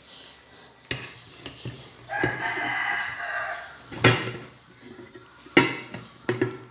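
An animal's long held call lasting about a second and a half, starting a little past two seconds in, and several sharp knocks, the loudest two at about four and five and a half seconds.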